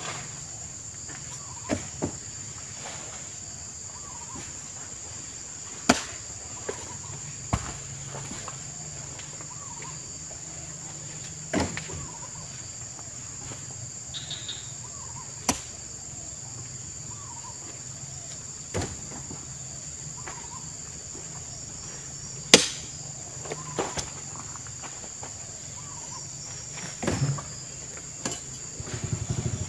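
Oil palm fruit bunches being loaded by hand onto a truck with a spiked pole: irregular knocks and thumps every few seconds as the bunches are struck and dropped onto the truck bed. A steady high-pitched insect drone runs underneath.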